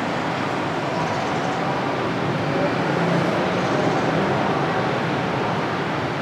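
Steady background hum of road traffic, even and continuous.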